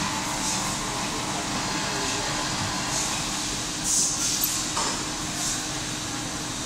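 Steady workshop hum with a few light ticks of handled metal parts, and a brief clatter of metal hand tools in a tray about four seconds in.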